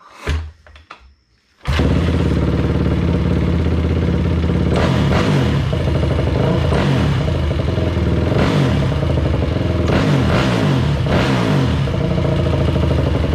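A Honda TRX450R's single-cylinder four-stroke engine is kick-started on a freshly rebuilt top end: one kick, then it catches about a second and a half in. It then runs with the revs rising and falling.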